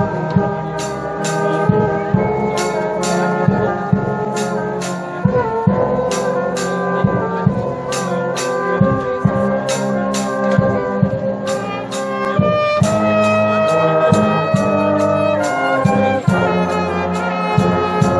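Marching band playing: trumpets and trombones carrying a melody over percussion with sharp, regular strikes, which come faster in the last couple of seconds.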